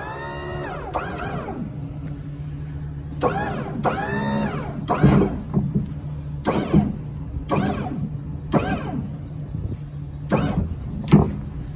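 Steel lift gate platform being folded up by hand, its hinges squealing: two long rising-and-falling squeals, then a series of shorter squeaks and knocks as it goes up, over a steady low hum.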